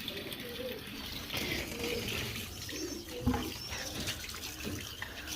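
Water running steadily from a tap into a container as it fills.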